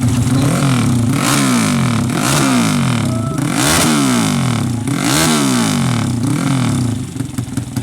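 450cc fuel-injected drag-bike engine with twin mufflers, revved hard several times in a row, its pitch climbing and falling about four or five times before easing back near the end.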